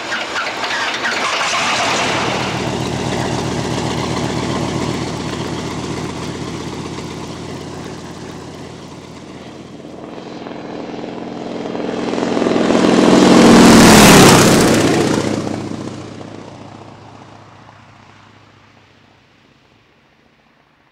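Propeller aircraft with a radial piston engine, running steadily. The sound swells to its loudest about two-thirds of the way through, drops in pitch like a plane passing by, then fades away.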